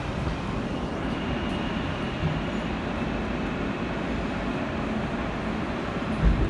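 Interior running noise of an R160A subway car rolling into a station: a steady rumble of wheels on rail, with a faint high whine for a couple of seconds after the start and a low thump near the end.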